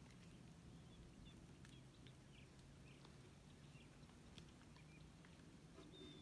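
Near silence: quiet outdoor ambience with a low steady hum and a few faint, short bird chirps scattered through it.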